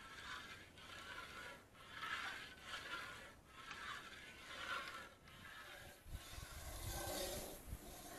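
Iron ladle scraping and stirring in an iron kadai of boiling sugar syrup, faint, in a regular rhythm of roughly one stroke a second. After about six seconds a low rumble joins it.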